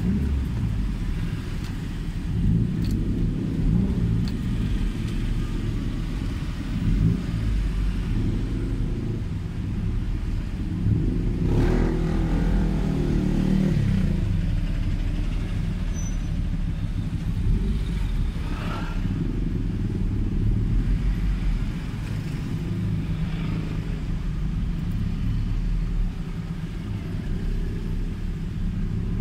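Toyota Celica ST205's turbocharged 3S-GTE four-cylinder engine and its freshly repaired exhaust, heard from inside the cabin while driving in slow traffic: a steady low drone that rises and falls with engine speed. About eleven seconds in, a louder swell rises and falls in pitch for a few seconds.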